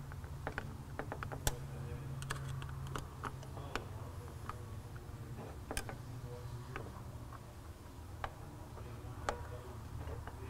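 Scattered small metallic clicks and taps of a screwdriver working the T20 Torx screws on a Duramax fuel filter head's hand primer, with the metal assembly being handled, over a steady low hum.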